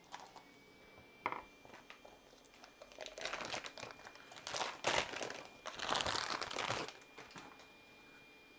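Plastic wrapping on a new spool of PLA 3D-printer filament being torn open and crinkled, in three bursts of rustling between about three and seven seconds in.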